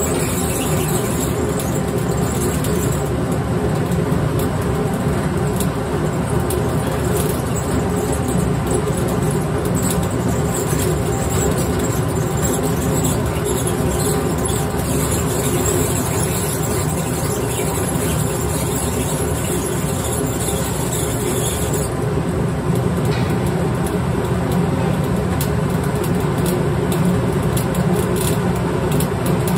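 Brewery grain mill running steadily, crushing malt fed from its hopper: a continuous, even mechanical grinding noise.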